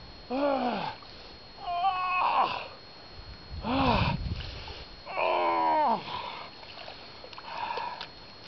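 A man groaning with effort, four loud drawn-out groans falling in pitch about a second and a half apart, then fainter ones near the end, as he strains to pull a geoduck clam free by hand from packed wet sand.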